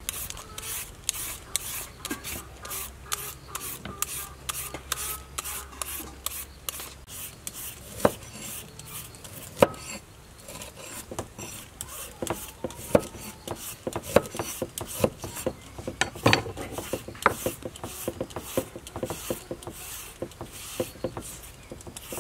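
A large kitchen knife cutting limes into wedges on a wooden cutting board: a steady run of short chops and scrapes of the blade against the wood, with a few louder knocks.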